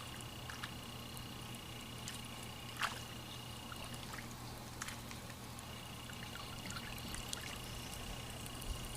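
Faint trickling water with a few light clicks, under a thin steady high whine that drops out for a moment midway.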